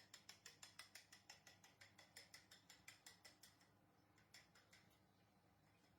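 Quick, even clicking of a kitchen utensil at work, about six strokes a second, faint; the strokes thin out and nearly stop about two-thirds of the way through.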